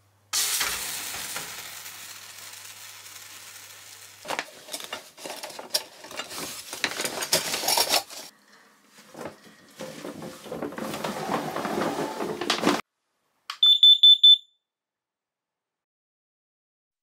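A wet metal hot-water bottle set on a hot kerosene-stove top, hissing as the water on it sizzles and slowly dying away. Then gear knocking and rustling as it is packed into a canvas bag, and near the end a quick run of loud, high beeps from a carbon monoxide alarm.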